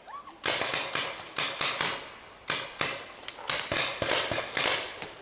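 Paintball markers firing, a rapid irregular string of sharp pops, well over a dozen shots, with a brief lull about two seconds in.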